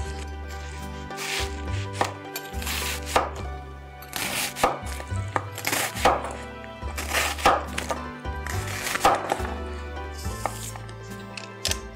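Close-miked crunching and chewing of deep-fried, Doritos-coated seafood, about a dozen sharp irregular crunches, over background music with a steady bass line.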